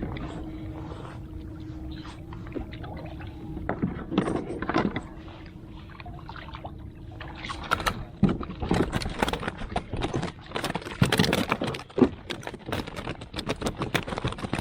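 Water splashing and knocking around a kayak as a caught fish is handled alongside. A steady low hum runs through the first half; from about halfway, quick irregular knocks and splashes.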